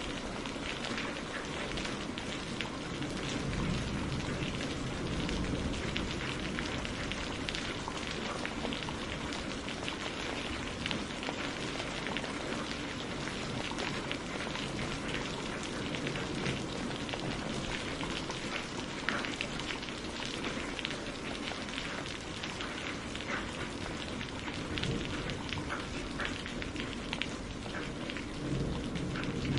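Steady rain falling on a surface: an even hiss of water with many small individual drops ticking through it.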